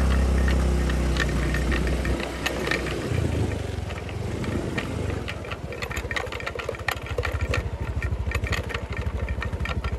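Honda scooter's engine running at low speed on a rough dirt track, with the scooter's body rattling and clattering over the bumps. The engine note eases about two seconds in.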